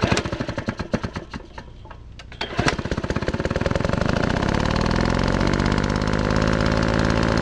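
Impact wrench hammering on the engine's crankcase cover bolts: short irregular bursts, then continuous rapid hammering from about two and a half seconds in.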